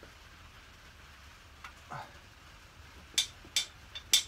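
A few sharp metallic clicks close together in the last second or so, from a spanner working the 14 mm bottom bolt of a Yamaha MT-07's rear shock.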